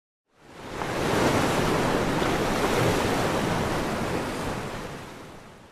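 Ocean surf: the steady rushing noise of waves breaking. It fades in over about the first second and fades out near the end.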